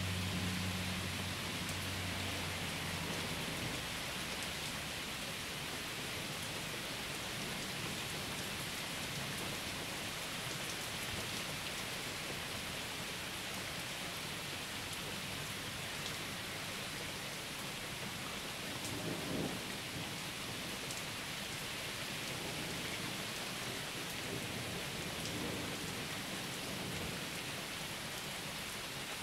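Steady rain falling through a thunderstorm. A low rumble of thunder fades out over the first few seconds, and a brief low thump comes about two-thirds of the way through.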